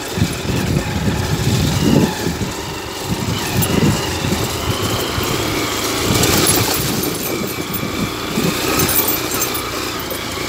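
Motorcycle engine running as it rides over a muddy dirt track, its note uneven.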